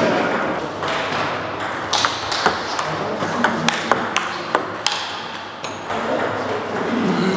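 Table tennis rallies: a celluloid-type ball clicking sharply off rackets and the table in a quick, irregular series, with play at neighbouring tables adding further clicks.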